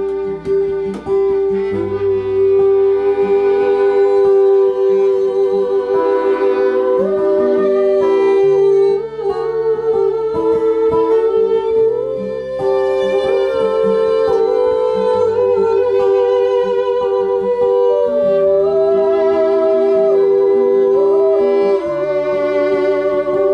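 Instrumental passage of a folk song: a fiddle plays a melody of long notes with vibrato over acoustic guitar accompaniment.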